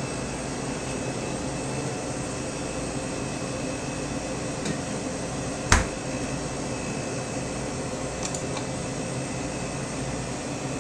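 Steady mechanical hum of kitchen equipment, with a single sharp knock a little past halfway through.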